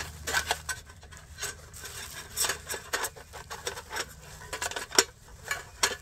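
Metal crossbars and panels of a portable camping table clinking and rattling as they are handled and fitted together: a run of short, irregular clicks and knocks, with one sharper knock about five seconds in.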